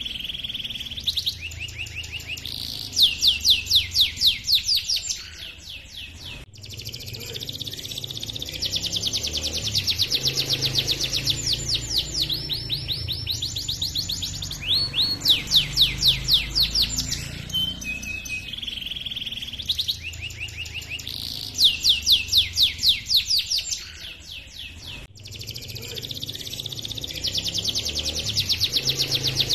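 Canary singing a long, continuous song of fast rolling trills and repeated 'cuit cuit' chirps, with short breaks about six seconds in and again near the end.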